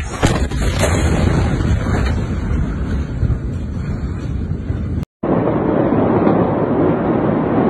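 Loud, rough wind and handling noise on a shaken phone microphone, with a few knocks near the start. About five seconds in the sound cuts out briefly, then a steady, duller rushing noise follows.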